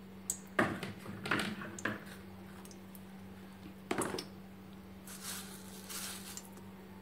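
Faint clicks and light knocks of a pan being handled on a stove, several in the first two seconds and one about four seconds in, over a steady low hum, with a brief soft hiss near the end.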